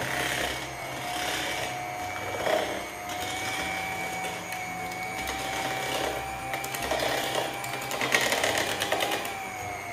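Electric hand mixer running steadily on its lowest speed, its beaters working flour into creamed butter to form a crumbly, breadcrumb-like mix. A steady motor whine with irregular rattling from the beaters in the bowl, busiest about eight seconds in.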